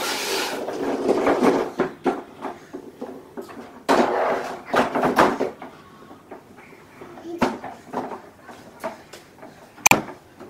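Large plastic toy dump trucks being pushed about: a rolling rumble and plastic rattle in two stretches, then scattered knocks, the sharpest just before the end.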